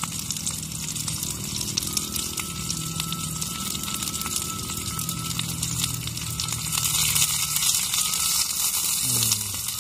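Hot oil sizzling and crackling in a pan as chopped shallots and spring onion fry, a steady hiss full of fine pops that grows a little louder about seven seconds in.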